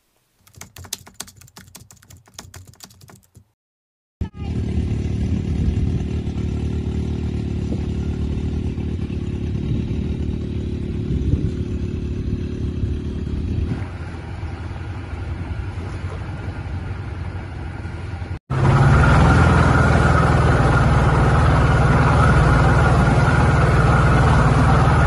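A steady low engine rumble from about four seconds in. After a cut near the end, a Suzuki outboard motor runs at speed, louder, with water rushing in the wake behind the boat.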